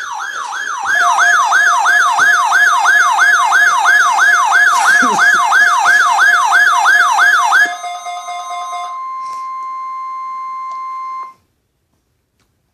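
Weather radio alert signals for the weekly NOAA Weather Radio warning test. First comes an electronic siren-like yelp of rapid falling sweeps, about three a second, over a steady lower tone. About eight seconds in it changes to the steady 1050 Hz NOAA warning alarm tone, which cuts off sharply about eleven seconds in.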